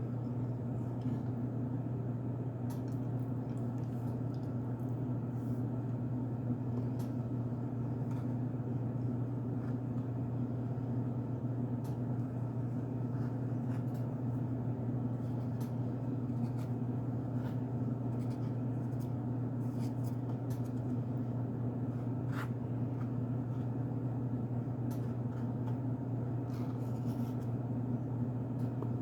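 A steady low hum throughout, with faint, scattered crunches and clicks of someone chewing cornstarch.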